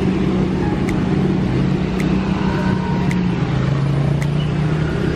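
A motor vehicle's engine running close by over steady roadside traffic noise, its pitch shifting a little as it goes, with a faint sharp tick about once a second.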